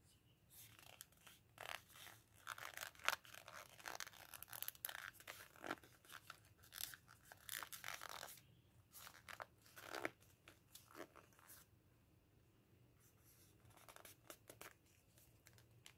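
Lined notebook paper rustling and crinkling in the hands as it is folded and rolled into a cone, in irregular bursts, with a pause of a couple of seconds near the end before a last short spell.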